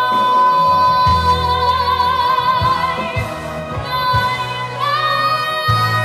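A woman belting a long, high held note over a low instrumental accompaniment, then moving up to a higher held note about five seconds in.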